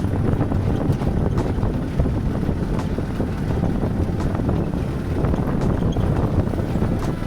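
Vehicle driving along a rough road: a steady low rumble with frequent small knocks and rattles.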